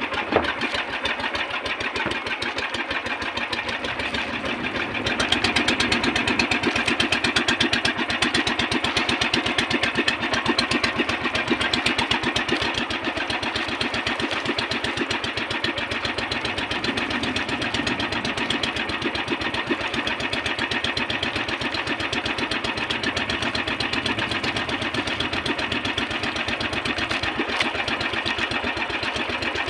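Engine of a motorised outrigger boat (bangka) running steadily underway with a fast, even pulse. It grows a little louder about five seconds in and eases back a few seconds later.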